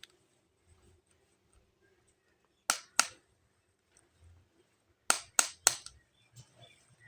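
Sharp clicks from toys being handled: two about a third of a second apart, then three more in quick succession about two seconds later.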